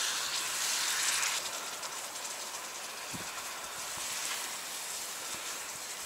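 Crepes sizzling in a frying pan of orange juice and sugar syrup: a steady hiss, a little louder for the first second or so.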